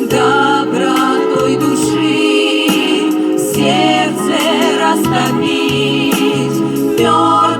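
A vocal ensemble singing together in several voices over an instrumental backing.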